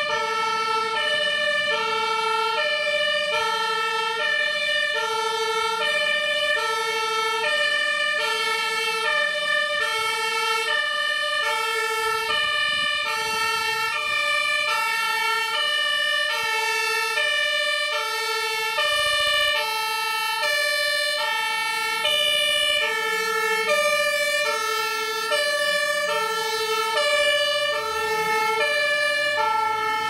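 Fire engine's German two-tone siren (Martinshorn) sounding continuously, stepping back and forth between two pitches about once a second.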